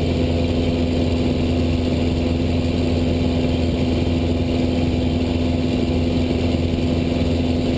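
Cessna 172's piston engine and propeller droning steadily as heard in the cockpit, with an unchanging pitch, during a climb.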